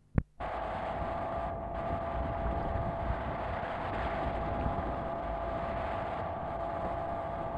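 Steady drone of a boat under way, with a constant hum tone over rushing noise, cutting in after a sharp click.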